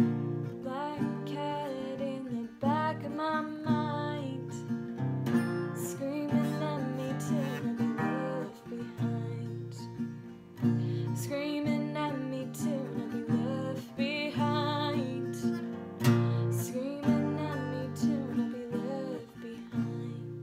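Acoustic guitar strummed in steady chords with a woman singing over it. The sound fades in the last second or so.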